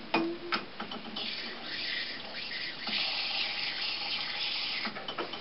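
Beer running from the tap of a plastic homebrew pressure barrel into a glass: a few clicks at the start, then a steady pouring hiss for about four seconds that stops near the end.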